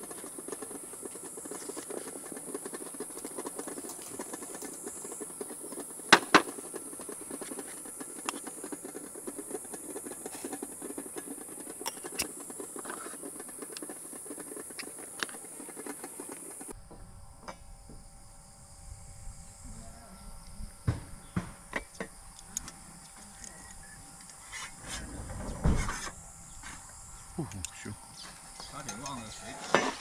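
Gas camp stove burning under a lidded pot of steaming buns: a steady hiss, with two sharp clicks about six seconds in. After a cut a little past halfway the hiss drops away, leaving light clinks and knocks of utensils on the table.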